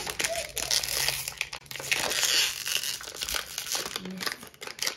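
Packaging being crinkled and rustled by hands unwrapping toy parts, a dense run of crackles with some tearing, busiest about two seconds in.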